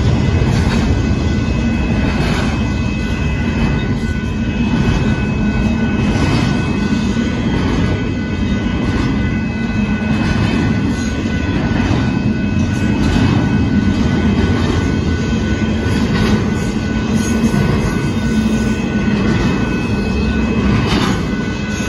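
Union Pacific double-stack intermodal container cars passing over a grade crossing: a loud, steady rumble of steel wheels on rail, with faint steady high tones above it.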